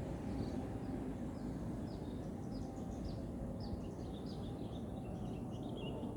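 Small birds chirping in many quick, short, high notes over a steady low background rumble.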